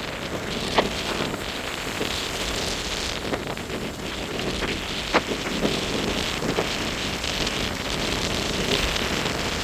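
Rough, hurricane-driven surf washing up the beach under steady wind buffeting the microphone, with a couple of sharp taps about a second in and about five seconds in.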